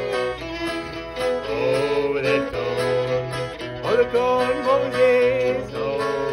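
Fiddle and acoustic guitar playing an old-time tune together: the fiddle carries the melody with sliding notes over the guitar's steady strummed rhythm.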